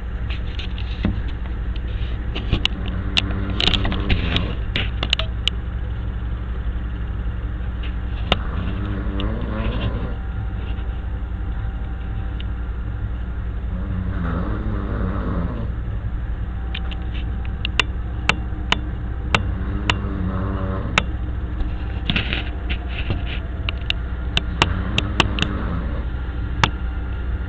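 A vehicle engine idles with a steady low rumble. Over it, a person snores every five seconds or so, with scattered sharp clicks.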